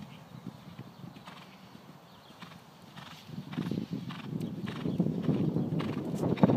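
Hoofbeats of a horse, a run of sharp knocks that get louder from about halfway through.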